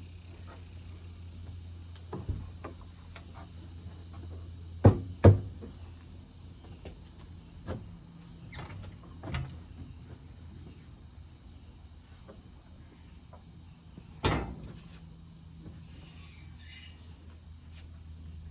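Sharp knocks and lighter clicks of hands and tools at work on the tractor. Two loud knocks come close together about five seconds in and another about fourteen seconds in, over a steady low hum.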